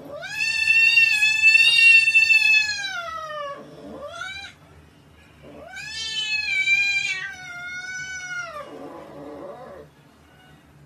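A cat yowling: two long, drawn-out meows of about three seconds each that rise at the start and fall away at the end, with a short rising meow between them.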